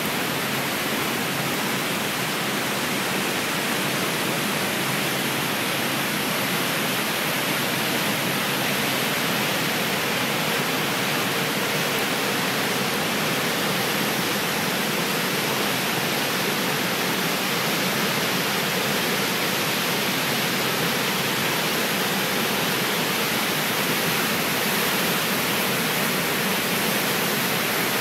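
Whitewater stream rushing through a narrow rock gorge: a steady, loud, unbroken noise of churning water.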